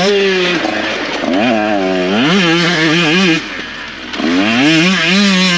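KTM 125SX single-cylinder two-stroke engine revving hard and rising and falling in pitch as the rider works the throttle and gears. It briefly backs off about three and a half seconds in, then winds back up.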